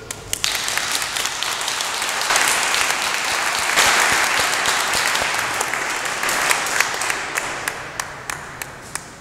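Audience applauding: the clapping builds over the first few seconds, then thins out to a few scattered last claps near the end.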